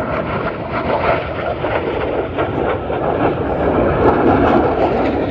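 Jet engine roar from a Blue Angels F/A-18 Super Hornet's twin turbofans as it flies past: a loud, ragged roar full of crackle that swells in the first moment and holds.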